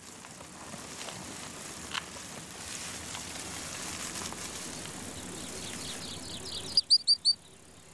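Steady rustling of a steppe rat snake sliding through dry grass, with a single sharp click about two seconds in. Near the end the rustling stops and two quick runs of short, high chirps follow, three or four in each run.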